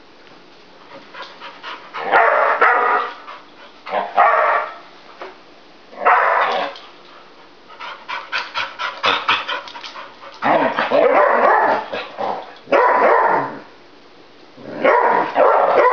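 Two dogs barking in repeated bursts of several barks each, with a quick run of short yaps near the middle and brief pauses between bursts.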